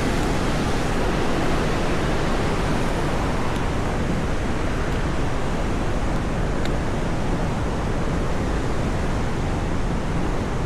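Steady, loud rushing noise of fast-flowing water, even and unbroken, with a few faint clicks.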